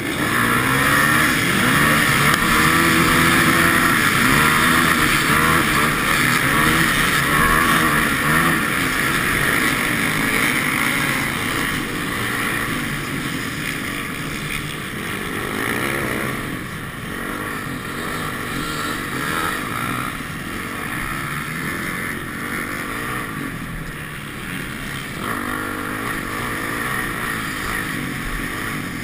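Off-road motorcycle engines revving hard as a line of dirt bikes launches together, then the rider's own bike accelerating up through the gears. Loudest in the first ten seconds or so, then quieter and steadier.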